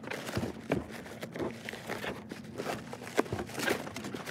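Clear plastic stretch wrap crinkling as it is pulled and peeled off a cardboard-wrapped panel, a run of irregular crackles.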